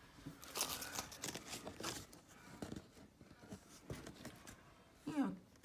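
Faint, scattered clicks and rustling of window blind slats being handled and pushed aside, busiest in the first couple of seconds. A short falling vocal sound comes near the end.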